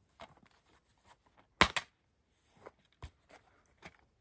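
Plastic Blu-ray case being handled and snapped open: small clicks and rustles, a loud double snap midway, and another sharp click about three seconds in.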